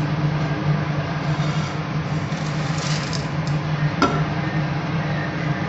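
Roasted dal scraped and tipped out of a nonstick kadai, a few brief scrapes, then a single sharp knock about four seconds in as the pan is set back on the gas stove. A steady low hum runs underneath.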